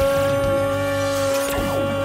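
Music: one long held note, steady in pitch, from the soundtrack of a transformation scene.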